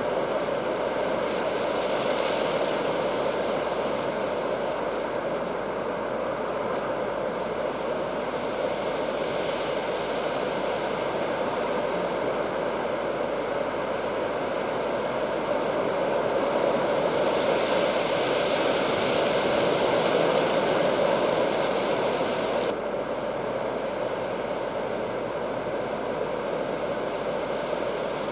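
Steady rushing noise of stormy weather, swelling and easing a few times. Its hiss drops off suddenly about 23 seconds in.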